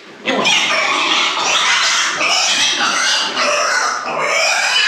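A weaner piglet of about 14 kg squealing loudly and without a break as it is picked up and held, starting about a third of a second in.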